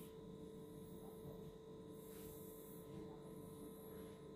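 Near silence with a faint, steady hum at one pitch.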